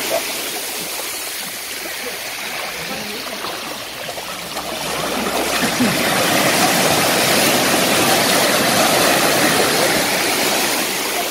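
Small waves breaking and washing up a pebble beach: a steady rush of surf that grows louder about five seconds in.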